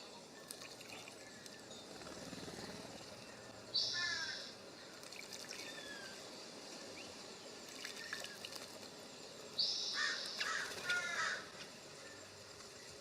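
A jay's harsh, rasping calls: one short call about four seconds in, then a longer run of calls near the end. Faint short chirps of small birds come in between.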